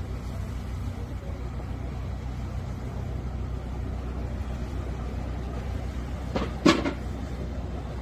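Steady low rumble with a faint hiss above it, broken about six and a half seconds in by a brief, sharp double knock, the loudest sound.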